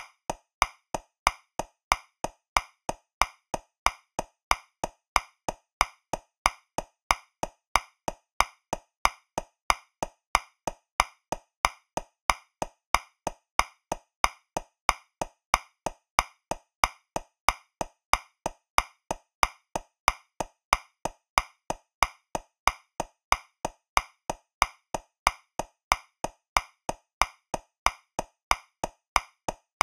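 Metronome clicking steadily at 185 beats per minute, about three clicks a second. It is in 2/4, so every other click, the first beat of each bar, is accented and louder.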